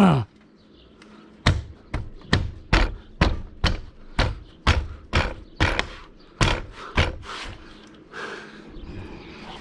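A rapid run of about a dozen sharp knocks, roughly two a second, on a new RV window frame as it is beaten into its opening. Fainter rustling near the end.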